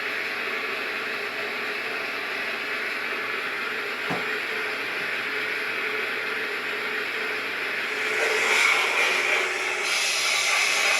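Steam locomotive sound effects played through the small speaker of a KATO 22-101 model railway sound box: a steady hiss of a standing engine, a single click about four seconds in, then a louder, brighter blast of steam hiss from about eight seconds in.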